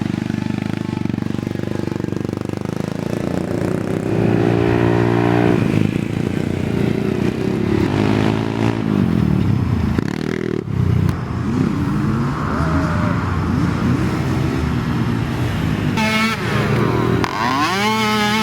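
Several small micro-class youth ATV engines revving, their pitch rising and falling and overlapping as the quads ride past; one revs up sharply near the end.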